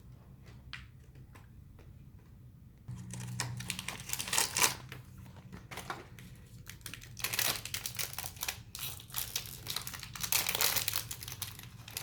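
Blind-box packaging being opened by hand: crinkly wrapping rustling and tearing in quick, dense bursts that start about three seconds in, after a few faint clicks.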